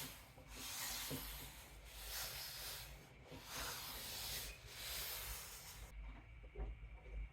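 Clothes iron pressing open the seams of a trouser: four long rubbing strokes over the cloth, each about a second, with short pauses between.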